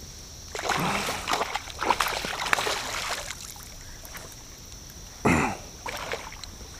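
A hooked channel catfish thrashing at the water surface beside a kayak. It splashes in a run of bursts for a couple of seconds, then gives one short, loud splash about five seconds in.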